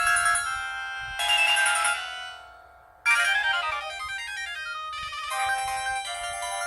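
64-voice polyphonic ringtone from a Pantech&Curitel PG-L1200 folder phone: bright synthesised melody notes. The melody fades out about two and a half seconds in, and a new tune starts abruptly just after three seconds.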